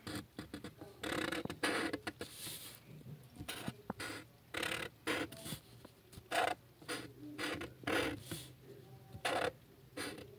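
Felt-tip marker drawing on paper: a run of short scratchy strokes with uneven pauses between them.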